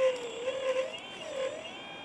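Motor of a remote-controlled scale excavator whining. Its pitch dips and comes back up several times as it works under changing load.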